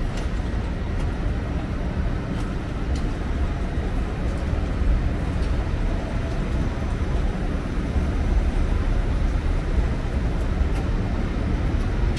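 Steady low rumble of a train, with a few faint clicks.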